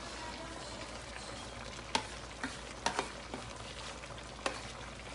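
A pan of chicken, papaya and ginger simmering with a steady sizzle while a spatula scrapes chili-pepper leaves out of a plastic tub into it, with a few sharp knocks of the spatula against the tub and pan.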